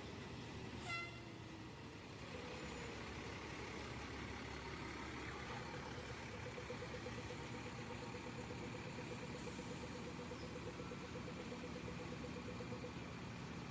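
Fire engine driving slowly past on a wet street, its engine running steadily under traffic noise, with a short horn toot about a second in.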